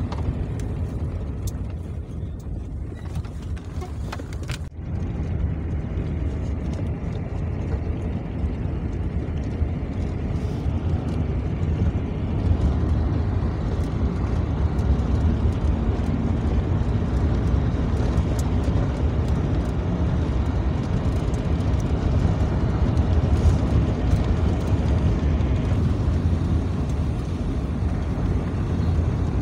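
A car driving along a paved road, heard from inside the car: a steady low rumble of engine and tyre noise that drops out briefly about five seconds in and grows a little louder in the second half.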